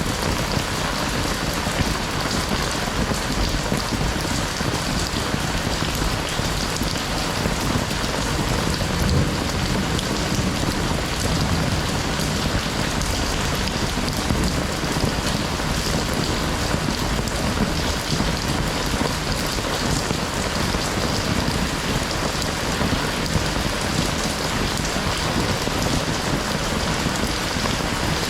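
Heavy rain falling steadily, a dense even hiss of drops landing on surfaces.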